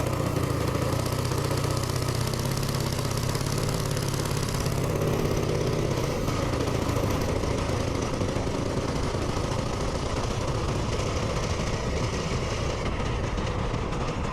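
Small minibike engine running steadily.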